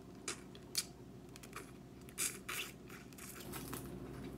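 Close-miked eating sounds from a sauce-coated shrimp bitten off the fingers: a few soft mouth clicks and smacks, then a couple of short wet bursts and a faint hiss a little past the middle.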